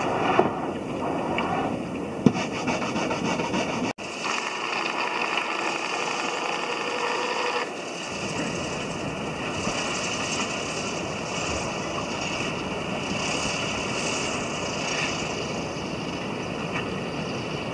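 Steady rushing of wind and breaking surf, heard from aboard a boat; the sound changes abruptly about four and eight seconds in.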